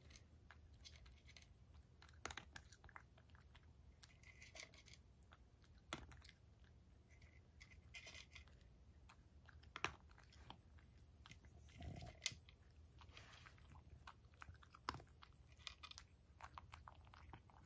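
A cat crunching dry kibble: faint, irregular crunches and clicks, with a few sharper crunches now and then.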